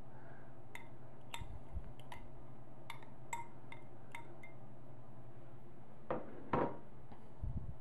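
A spoon clinking and scraping against a small bowl while sauce is worked out of it: light ticks every half second or so for the first four seconds. A couple of duller knocks follow about six seconds in and again near the end.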